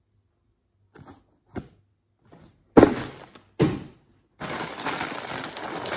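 Unpacking on a wooden table: a couple of light taps, then two loud thumps about a second apart, then the plastic popcorn bags crinkling as they are handled.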